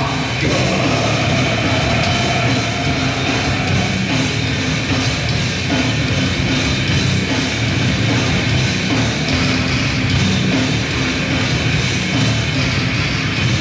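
Grindcore band playing live and loud: distorted guitars, bass and a drum kit with fast, steady drumming.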